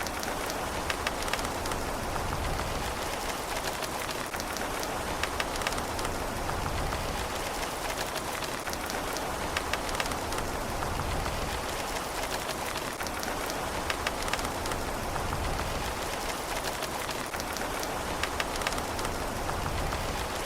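Steady rain falling on a surface, an even hiss with many close drips ticking through it, and no thunder.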